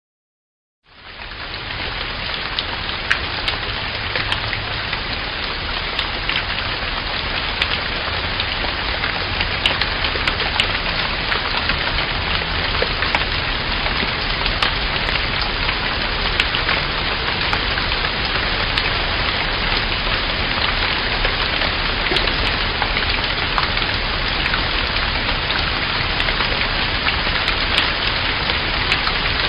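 Steady rain falling, a dense even patter with scattered sharper drop ticks. It starts about a second in.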